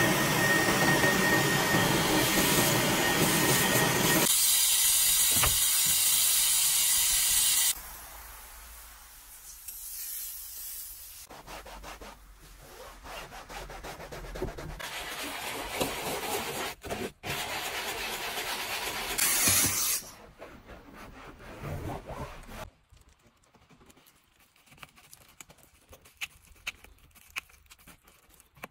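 Car-interior detailing sounds: a loud steady rushing noise, like a vacuum, runs for the first several seconds and cuts off. Then come softer rubbing and wiping sounds with scattered clicks, and near the end faint light ticks of brush bristles working around the steering-wheel trim.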